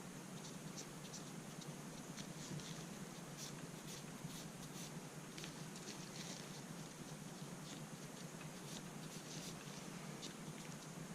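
Faint scratching and light clicks of rifle parts being wiped and handled with cotton swabs, over a steady low hiss.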